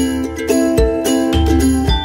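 Background music: a tune of held notes over a steady beat.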